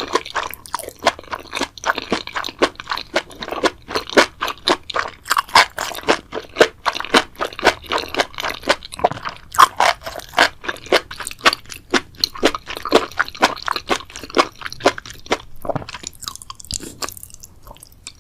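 Seaweed being chewed with rapid, crisp crunches, several a second, thinning out near the end.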